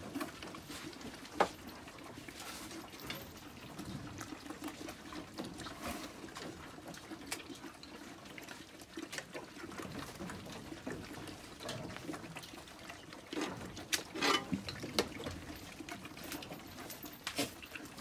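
Goats eating cooked feed from bowls: wet slurping and chewing, with scattered knocks and clinks of the metal and plastic bowls. There is one sharp knock about a second and a half in, and a louder spell of clattering about two thirds of the way through.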